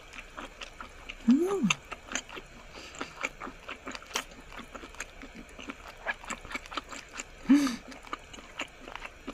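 Close-miked mukbang chewing: a woman chewing squid with many small wet clicks and smacks, and two short hummed "mm" sounds, about a second in and again about seven and a half seconds in.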